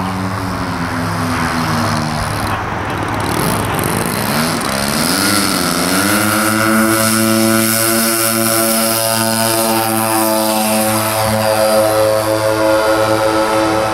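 The twin DLE 35 single-cylinder two-stroke gasoline engines of a 1/8-scale C-47 model airplane, running at low throttle, then wavering and rising in pitch between about two and six seconds in as the throttles open. From about six seconds in they run steadily at full power for the takeoff run and climb-out.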